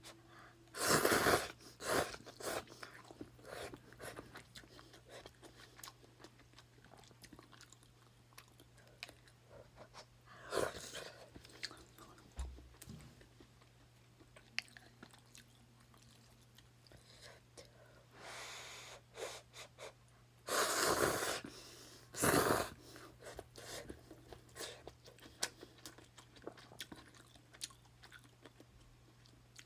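A person eating ramen noodles: several loud slurps, each about a second long, between bouts of chewing and small clicks.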